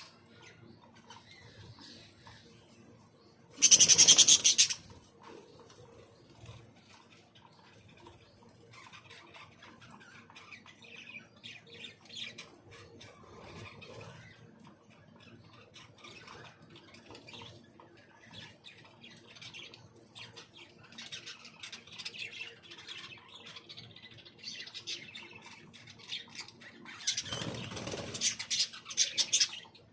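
Aviary birds: a loud flurry of flapping wings about four seconds in and again near the end, with scattered chirps and squawks between.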